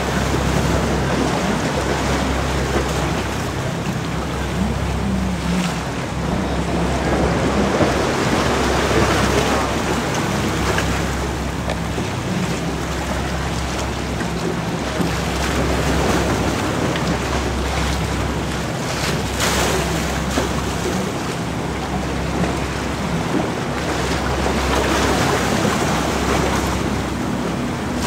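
Wind rushing over the microphone and choppy water splashing, swelling and easing every few seconds, over a low steady engine drone from a boat.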